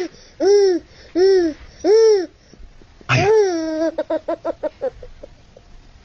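Baby laughing: three short squealing laughs that rise and fall in pitch, about half a second apart. About three seconds in comes a longer squeal that breaks into a quick run of short giggles, which fade out before the end.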